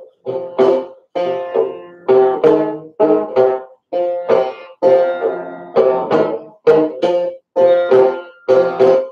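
Guitar chords strummed in a steady rhythm, about two strokes a second, each ringing out briefly.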